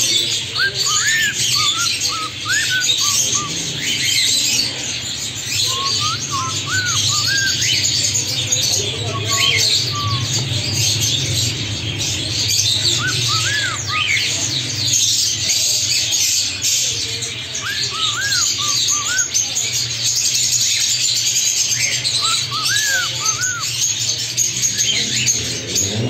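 Cockatiel chirping, with short clusters of rising-and-falling chirps every few seconds over continuous bird chatter and a steady low hum.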